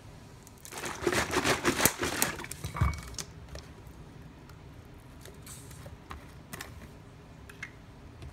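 Beer glugging and fizzing out of a glass bottle into a pint glass for about two and a half seconds, ending with a low thump. Then a few light plastic clicks and crinkles as a plastic tomato juice bottle's screw cap is opened.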